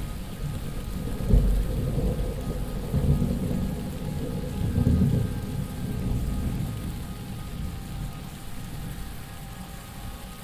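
Low, rumbling booms of rocket and missile interceptions in the night sky, swelling about one and a half, three and five seconds in, then fading to a low, continuous rumble.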